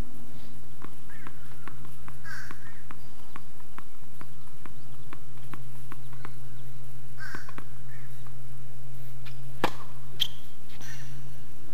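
A tennis ball bounced over and over on a hard court, a light click about every half second, as the server readies to serve. Then a single sharp racket strike on the serve, the loudest sound, with a higher pop half a second later. A bird calls twice over a steady low hum.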